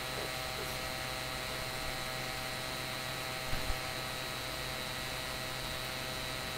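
Steady electrical hum and hiss with several faint fixed tones, and two soft low thumps about three and a half seconds in.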